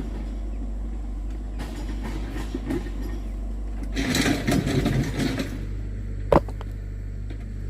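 An engine running steadily with a low hum. About four seconds in comes a second and a half of rustling or scraping, and a single sharp knock comes near the end.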